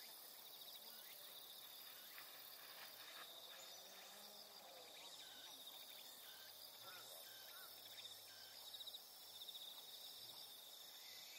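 Faint insects trilling in grass: a steady, rapidly pulsing high trill, with a few faint short chirps over it.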